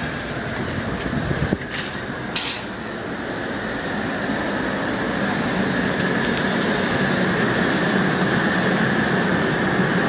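Propane-fired drum chile roaster running with a steady rushing burner noise, growing louder as it is approached, while it roasts green chiles. Two brief sharp knocks sound in the first few seconds.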